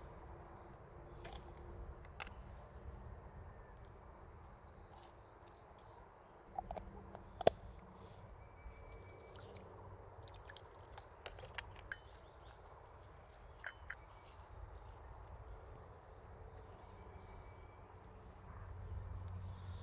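Faint forest ambience with scattered short bird chirps and calls. A few sharp clicks or knocks stand out, the loudest about seven and a half seconds in.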